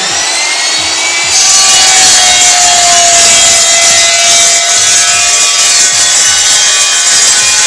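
Electric cold saw cutting through a metal bar. About a second in, the blade bites into the metal and the sound gets louder, turning into a steady, ringing whine that holds until near the end.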